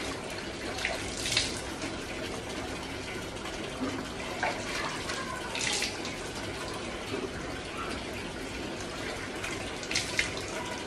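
Water running steadily from a tap into a basin, with a few splashes as water is scooped up in cupped hands and splashed onto the face.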